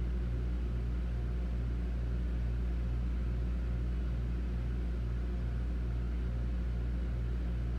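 A steady low mechanical hum with a soft pulsing about twice a second, like a motor or engine running at a constant speed.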